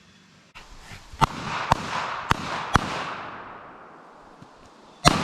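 Ruger .380 pistol firing: four sharp shots about half a second apart, then a louder single shot about two seconds later, each followed by a long rolling echo.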